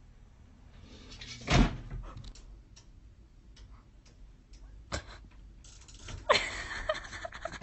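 A cat climbing and bumping against furniture and a window frame. There is a heavy thump about one and a half seconds in, then a few light taps, then scrabbling with a louder knock near the end as it claws at the frame.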